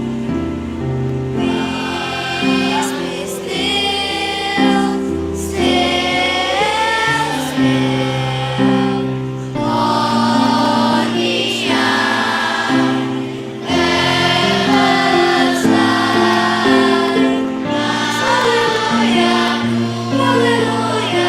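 Children's school choir singing a sacred song with piano accompaniment; the voices come in about a second and a half in and sing in phrases over held chords.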